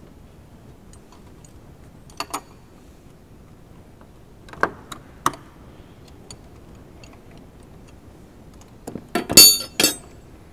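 Metal hand tools and parts clinking: a few light clicks and taps, then near the end a louder burst of clanks with a short metallic ring.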